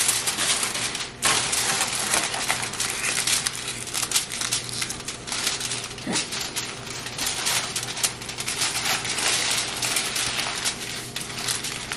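Aluminium foil crinkling and crackling as a sheet is pressed down and crimped around the rim of a disposable foil baking pan, in a continuous run of fine crackles.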